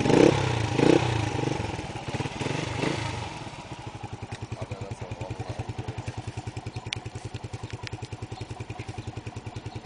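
Kuba 125 motorcycle engine through an aftermarket exhaust, blipped sharply twice, then two lighter blips about three seconds in. It then settles to a steady, evenly pulsing idle.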